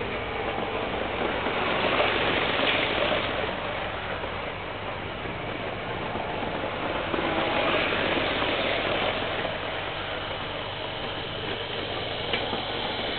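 Hornby model trains running on the track, their small electric motors whirring and wheels rolling on the rails. The noise is steady and swells twice as a train passes nearer.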